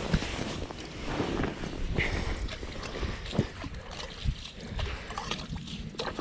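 Wind rushing over the microphone and jacket fabric rustling against a body-worn camera, with scattered light clicks and knocks as an ice-fishing rod and reel are handled.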